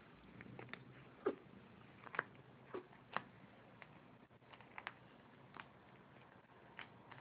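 Sleeping kitten snoring faintly, heard as short, irregular clicks from its breathing. The clicks come most often in the first half.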